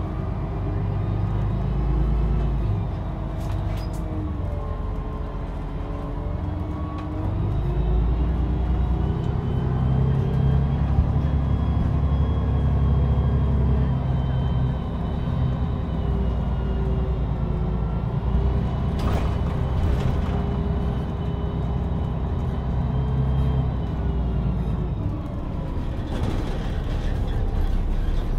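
A bus engine runs as the bus drives, a heavy rumble whose pitch rises and falls slowly as it speeds up and slows down. Short hissing bursts come about 19 seconds in and again near the end.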